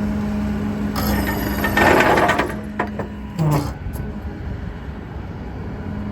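Hydraulic outriggers on a crane service truck being lowered: a steady hum, a loud burst of hiss about two seconds in, then the hum stops and a few clicks and knocks follow. A 6.7 Cummins diesel runs underneath throughout.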